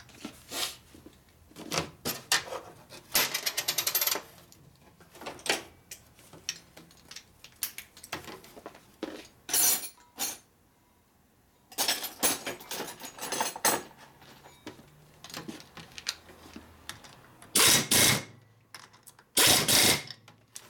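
Pneumatic wrench on an air hose running in short bursts, with metal parts and tools clinking in between, as it runs down the hardware on a Harley-Davidson shovelhead rocker box. The two loudest bursts come near the end.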